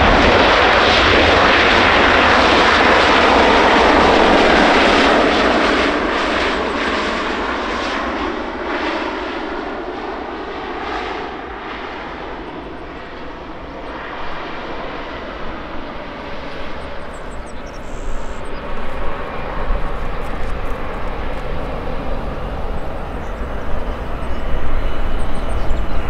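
Airliner engines on landing, loud for the first few seconds, then fading to their lowest about halfway through. They build up again through the second half, with a faint whine on top.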